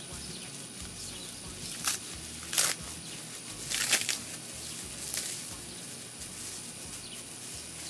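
Plastic wrapping crinkling by hand in several short bursts, the loudest about two and a half and four seconds in, as a wrapped item is unpacked.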